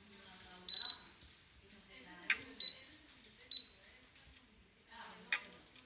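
Topcon MS05 total station beeping three times, a longer beep about a second in and then two short ones, while it measures to its targets automatically. Two sharp clicks come in between.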